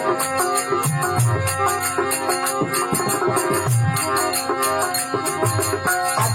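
Rajasthani folk devotional music: a melodic instrument playing over a steady tabla-style hand-drum rhythm, with no singing.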